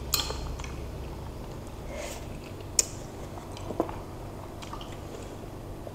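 Quiet eating sounds from bakso meatball soup: soft chewing, and a few sharp clicks of metal spoons against ceramic bowls, the loudest about three seconds in and another a second later.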